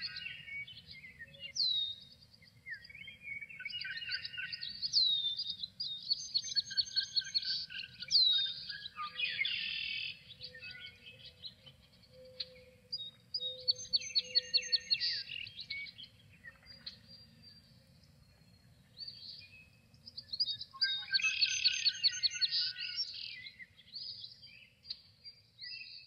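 Several songbirds singing together: whistled phrases, sharply falling notes and rapid trills of repeated notes overlap in bursts, with short lulls between them.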